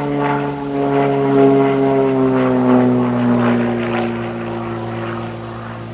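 Aviat Pitts S-2C aerobatic biplane's six-cylinder Lycoming engine and propeller passing by, loudest a second or two in, then dropping in pitch and fading as the plane moves away.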